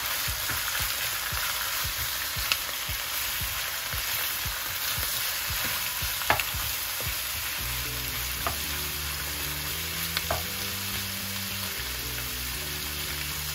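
Sliced boiled beef tongue with onions, garlic and chili sizzling in oil in a nonstick wok, stirred and scraped with a plastic spatula, with a few sharp clicks of the spatula against the pan. The stirring stops about halfway and the sizzling goes on.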